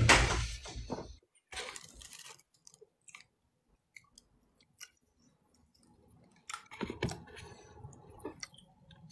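A person chewing and eating food close to the microphone, with small crunching and mouth noises. A louder, brief burst of noise comes right at the start.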